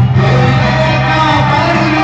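Music through a PA system: an electronic keyboard playing with a held bass note, and a man singing into a microphone.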